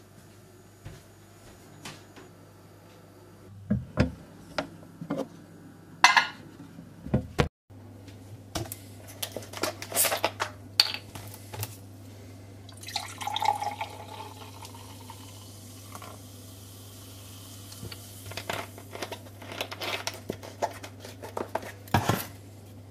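Knocks and clinks of a bottle and glass being handled, then juice poured from a bottle into a glass for about three seconds. More clinks and knocks follow near the end.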